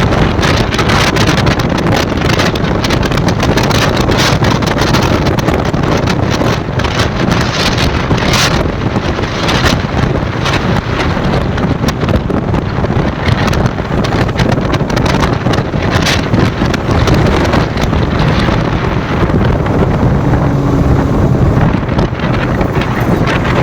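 Heavy wind noise buffeting the camera microphone on a moving motorcycle, with vehicle and road noise underneath.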